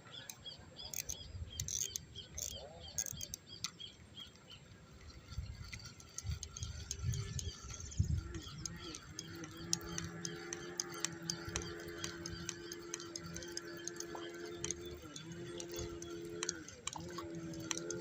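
Wild birds chirping in short high calls. From about eight seconds in, a steady low hum with a few brief breaks joins them and becomes the louder sound.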